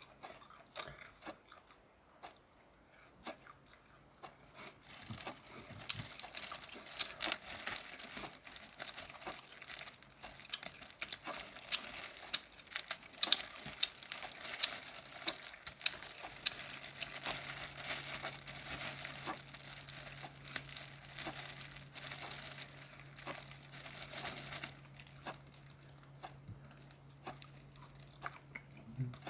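Steamed shrimp being peeled and eaten close to the microphone: shells crackling and tearing, with crunching, busiest through the middle and thinning out near the end.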